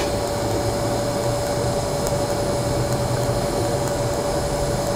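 Electric arc welding a bead along a 16-gauge mild steel plate: a steady hiss with a constant hum underneath.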